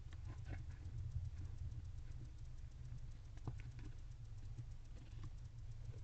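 Faint, scattered clicks and scratches from a barn owl shifting and preening in a wooden nest box, over a steady low hum.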